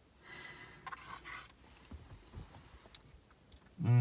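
Quiet eating sounds: a plastic fork scraping and tapping in a tray of melted chocolate, with a few small clicks, breathing and chewing. A short voiced sound starts just before the end.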